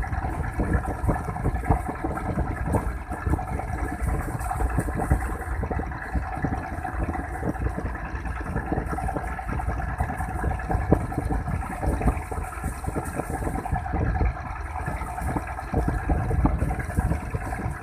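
A motor running steadily, with wind buffeting the microphone.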